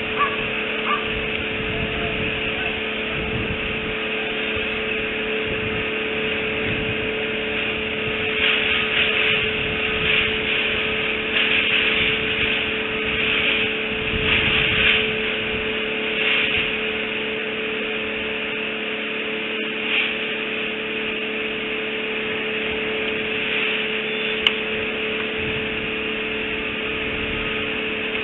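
Outdoor nest-camera microphone picking up a steady electrical hum over constant hiss. Scratchy, rustling noise comes and goes in the middle, and there is a single sharp click near the end.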